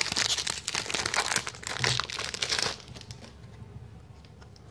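Wrapper of a trading-card pack crinkling and tearing as it is pulled open and peeled off the cards, stopping about three seconds in. Fainter handling of the cards follows.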